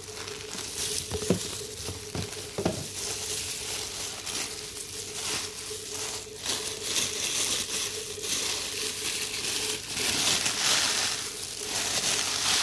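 Cardboard shoe box handled with two sharp knocks early on as the lid comes off, then tissue paper rustling and crinkling, louder in the second half, as a hand in a thin plastic glove unfolds it.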